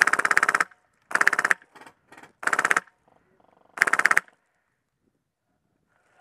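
Polarstar HPA-engined A&K M249 SAW airsoft gun firing four short full-auto bursts, each a rapid, even rattle of shots, the last ending about four seconds in.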